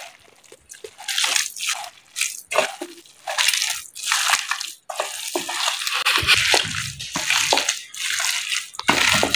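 Hands kneading a wet raw minced-beef kebab mixture with a freshly added egg: a run of uneven squelching strokes, one or two a second, starting about a second in.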